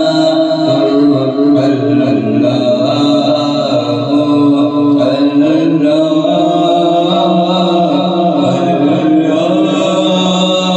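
Voice chanting a religious recitation in long, slowly gliding held notes, with no beat.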